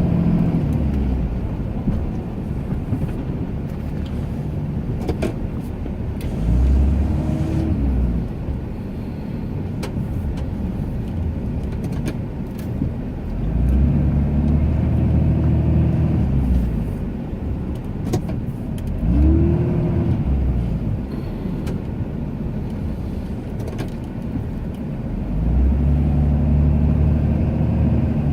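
Ram 2500 pickup's engine running under load while plowing snow, surging up in pitch and loudness and easing off four times as the truck pushes the snow and backs off.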